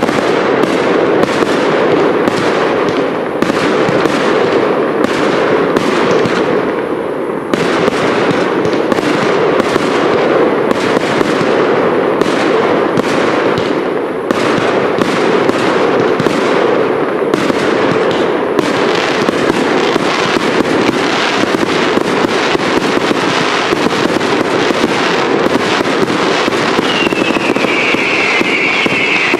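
Firework cakes firing a continuous rapid barrage of shots, bursts and crackle. Near the end a high whistle glides down in pitch over the barrage.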